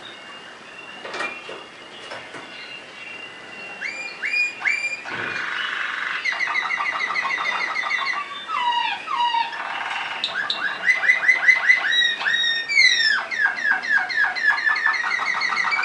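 Waterslager (Malinois) canary singing: quiet scattered notes at first, then from about four seconds in fast trills of rapidly repeated notes, some sliding downward, getting louder.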